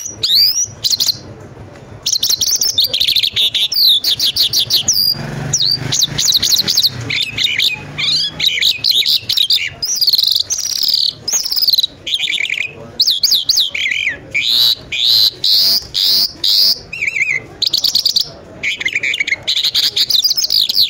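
Caged lark singing a loud, continuous song of fast high trills and chirps, in phrases broken by brief pauses.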